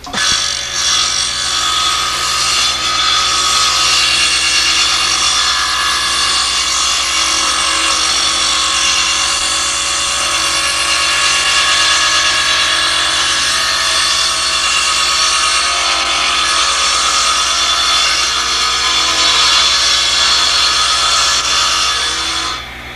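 Bench-top woodworking power tool running steadily while a plywood boat frame is held against it to bevel its edge; it cuts off abruptly near the end.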